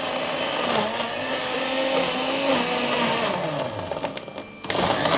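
Electric kitchen appliance motor running on fruit and vegetables, its pitch wavering as the load shifts. About three seconds in the pitch falls away and the sound dips, then it comes back loud just before the end.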